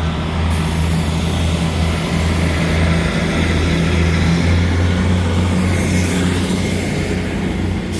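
Passenger train at the platform with its engine running, a steady low drone under a rushing noise.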